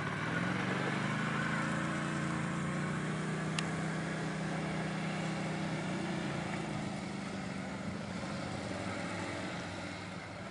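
Quad bike (ATV) engine running at low speed, a steady drone that eases off slightly near the end. A single short click about three and a half seconds in.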